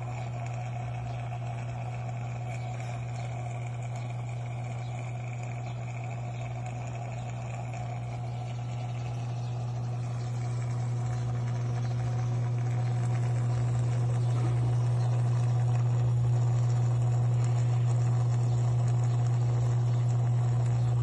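Aquarium pump humming steadily in a low mains-frequency drone, growing louder about halfway through.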